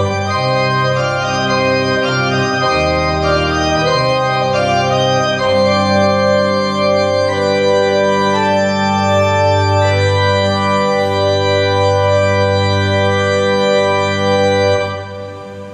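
Content digital classical organ playing a classical piece, with low bass notes under the chords: moving harmony at first, then long held chords. The last chord is released about fifteen seconds in, and the hall's reverberation dies away after it.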